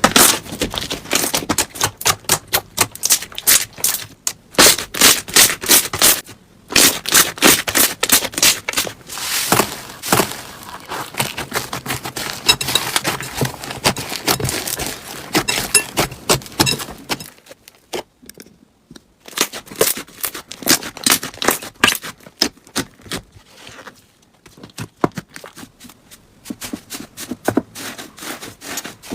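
Slime being squished and poked by hand, giving dense runs of sticky clicks and crackling pops that pause briefly a few times.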